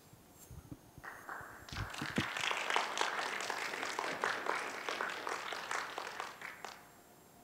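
Audience applauding, starting about a second in and dying away near the end, with a few low thumps in the first two seconds.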